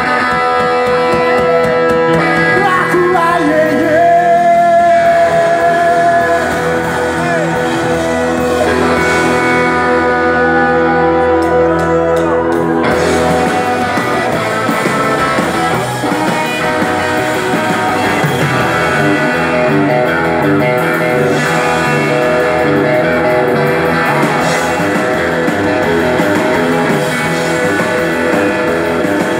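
Live rock band playing loudly with electric guitars and drums, the texture changing abruptly to a new part about thirteen seconds in.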